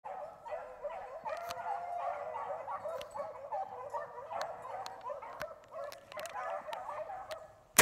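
A pack of beagles baying and yelping together on a rabbit's track, many overlapping wavering voices: the hounds are running the rabbit. A shotgun blast goes off right at the very end.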